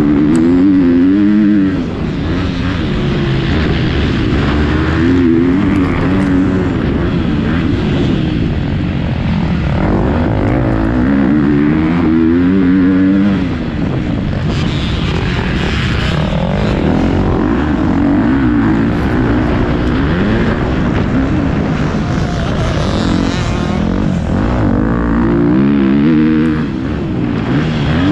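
Motocross bike engines racing, revving up and down continuously, with the throttle shut off briefly three times.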